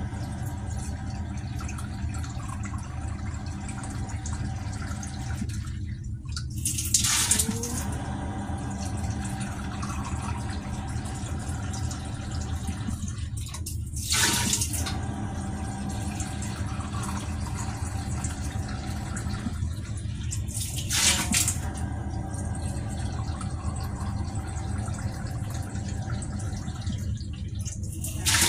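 Water running steadily from a kitchen tap to fill a bowl. About every seven seconds, a bowlful is poured into a stainless-steel stockpot with a short splash, the loudest moments of the clip.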